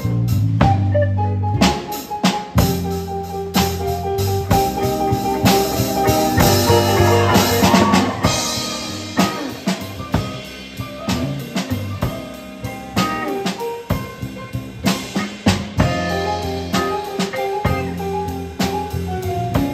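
A live band playing, with the drum kit prominent (snare, bass drum and cymbals) under saxophone, electric bass and keyboard lines. There is a quick run of notes partway through.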